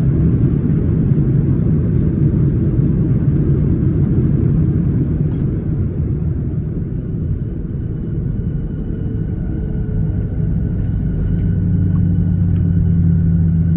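Cabin noise of a Boeing 737-800 rolling out on the runway just after landing: a loud, steady low rumble, with a steady multi-tone engine whine coming in about halfway through.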